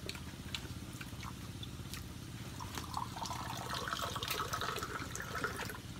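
Eating with bare hands: wet chewing and lip-smacking with scattered small clicks, busier in the second half.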